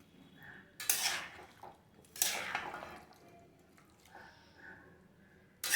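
Chopped capsicum, carrot and onion tipped into a pan of frying chicken, with kitchen clatter of a spoon against the pan: two sharp rushes, about a second in and just after two seconds, each fading quickly, and another at the very end.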